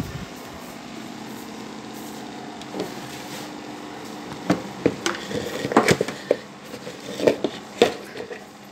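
Handling noise: a thump at the start, then a run of sharp knocks and clacks in the second half, over a steady low hum.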